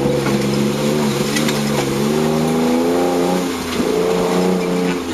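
Toyota Land Cruiser Prado 150 rally car's diesel engine pulling under load on a muddy off-road track, heard on board. The revs dip briefly about three and a half seconds in, then rise again.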